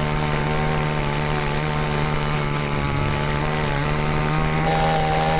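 Chainsaw engine running at a steady speed, an even buzzing drone with no change in pitch.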